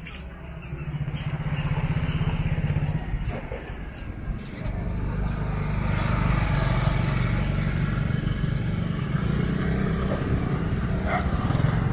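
Small motorcycles passing close by with their engines running; one passes about a second or two in, and a louder one comes up about five seconds in and stays close.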